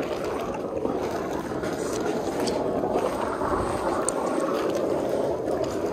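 Self-serve car wash foam brush scrubbing a car's hood and grille, with a steady rush of foaming soap flowing out of it.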